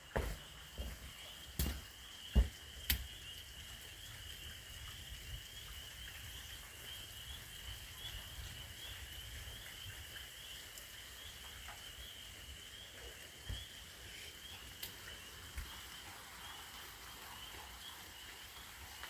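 A steady high-pitched trilling chorus of frogs, with a few sharp clicks or knocks in the first three seconds.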